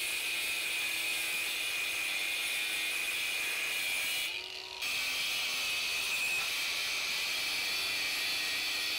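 Angle grinder with a thin cut-off disc cutting through steel angle bar: a steady high whine over hiss. It dips briefly about four and a half seconds in.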